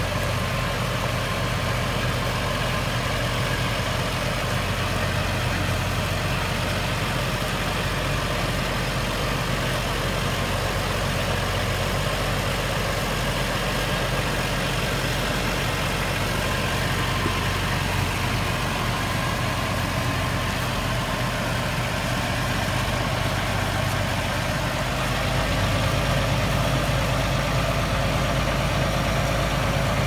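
Diesel engine of a large SF2104G farm tractor running steadily under load as it pulls a disc plough through the field, growing a little louder near the end.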